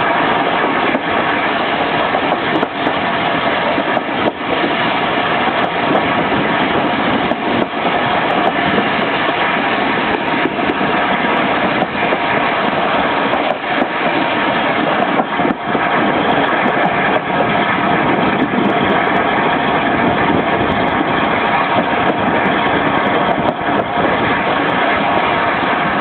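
Steam-hauled passenger train on the move: a steady running noise with scattered short clicks and knocks from the wheels on the track.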